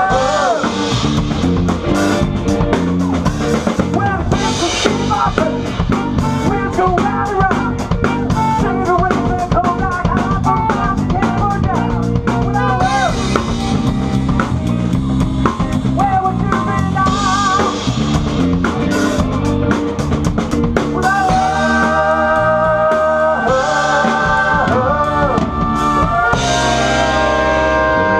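Live band playing, with a drum kit keeping a steady beat under a melodic lead line that bends up and down in pitch.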